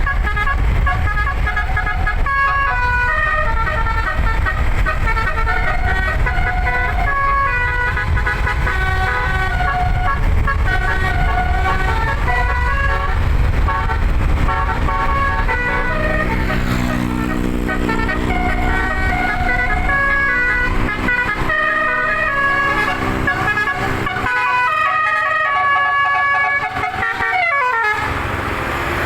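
Eleven-note 'basuri' telolet musical air horn on a bus playing a tune, one held note after another in quick steps, over a low rumble. Near the end a note slides steadily down in pitch before stopping.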